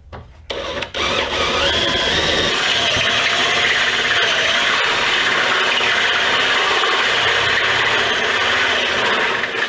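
DeWalt cordless drill running a step drill bit through the sheet-metal inner panel of a car hood, enlarging an existing hole. The steady drilling starts about a second in and stops just before the end.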